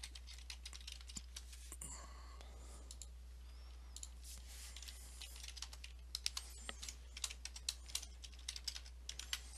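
Computer keyboard typing: irregular key clicks, sparse at first and coming thick and fast in the last few seconds, over a faint steady low hum.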